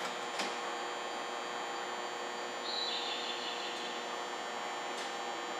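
Steady electrical hum and whine of a standing Nagoya subway 2000 series train at the platform. A faint click comes about half a second in and again near the end. A soft hiss starts about halfway through, steps slightly lower in pitch and lasts about two seconds.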